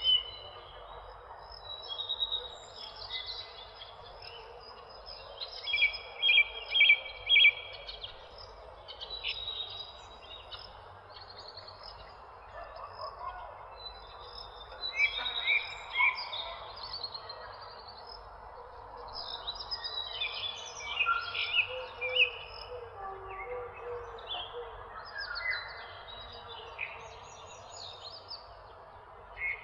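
Several songbirds chirping and calling in clusters of short, quickly repeated notes with brief pauses between them, over a steady background hiss of outdoor ambience. The loudest run of chirps comes about six to seven seconds in.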